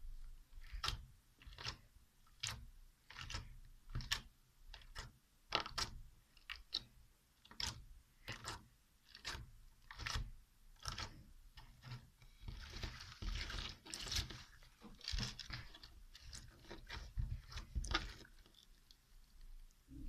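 Slime being pressed and squeezed by hand, giving sharp popping and crackling clicks a little more than once a second, with a denser run of crackling a little past the middle.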